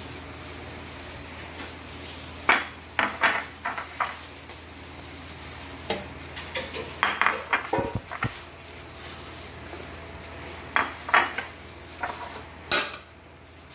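Ceramic plates clinking against a large aluminium pot as meat and vegetables are tipped in, and glass noodles being tossed by gloved hands: a scattered string of short clinks and knocks, with one dull thump about eight seconds in.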